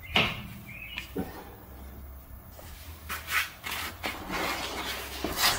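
Hand work on a pickup's front sway bar bushing and bracket: a sharp metal click, a few lighter knocks, then scraping and rubbing as parts are handled.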